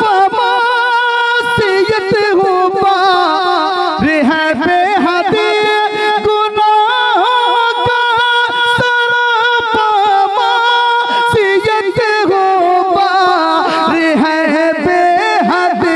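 A man's voice singing a naat unaccompanied into a microphone: long, high, held notes with wavering ornaments and glides up and down, in a classical style without clear words.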